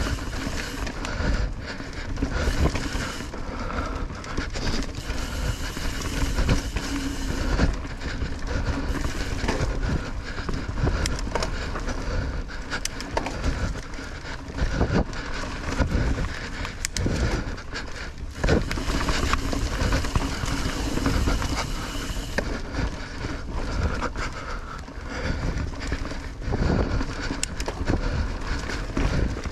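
Mountain bike riding over a rough dirt trail: steady rolling tyre noise with frequent rattles and knocks from the bike as it goes over bumps.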